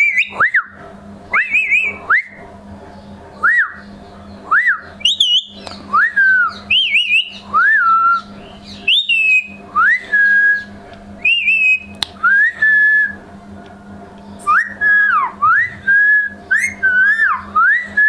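Indian ringneck parakeet giving short whistled calls, sharp rising-and-falling chirps about once a second.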